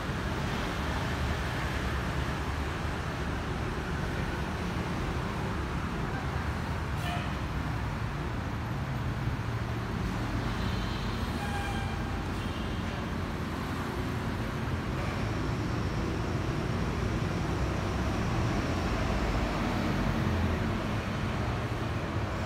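Steady rumble of road traffic, with a few short high tones about halfway through.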